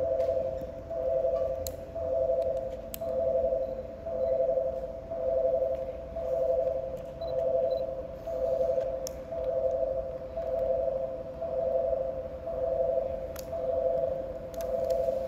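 Electronic station warning tone: two pitches sounding together in a beep about once a second, signalling a train about to pass through the platform.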